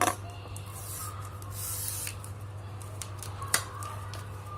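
A small parcel being opened by hand: packaging rustling, with a short tearing hiss about two seconds in and a few sharp clicks, the loudest at the start and about three and a half seconds in.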